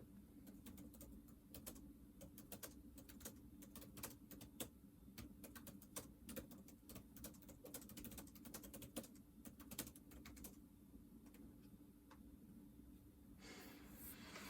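Faint typing on a computer keyboard: quick, irregular key clicks for about ten seconds, then they stop. A short hiss of noise follows near the end.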